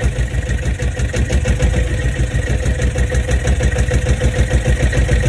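Bukh DV8 marine diesel engine idling with a steady, even, rapid beat, its throttle set a fraction up so it holds tick-over.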